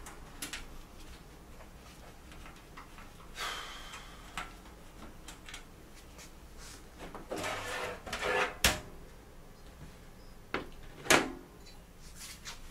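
Hands working on an open desktop PC tower: scattered clicks, knocks and brief rubbing of metal and plastic parts being handled. The two sharpest sounds come a little past the middle, a hard click followed by a knock a couple of seconds later.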